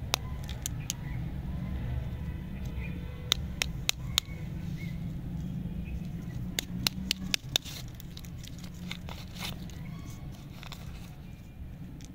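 Crinkling and tearing of a chewy lollipop's wrapper being opened by hand: sharp crackles in several short clusters. A steady low rumble runs underneath.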